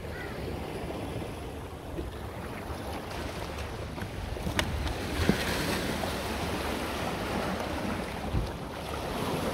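Sea waves washing against shoreline rocks, with wind rumbling on the microphone. A single sharp click comes about four and a half seconds in.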